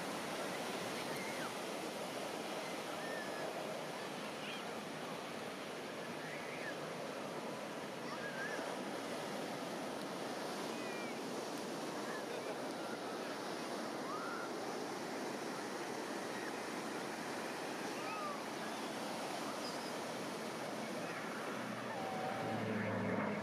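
Surf washing on the beach, with faint voices from the beach crowd. Near the end a low aircraft engine drone comes in and grows louder.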